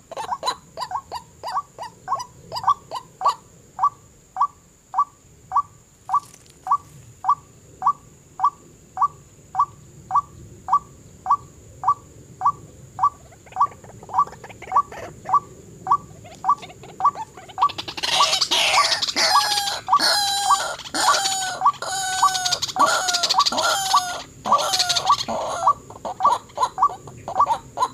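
White-breasted waterhen calling: a steady run of short single notes, about two a second, and about two-thirds through a louder, harsher bout of croaking calls lasting some seven seconds before the single notes resume.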